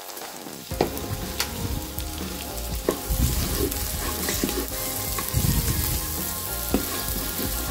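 Chopped red onion sizzling in melted margarine in an Instant Pot on sauté, with a spoon now and then clicking against the pot as it is stirred.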